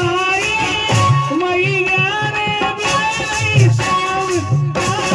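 Live Indian folk music: regular low hand-drum strokes under a melody line that bends and wavers in pitch.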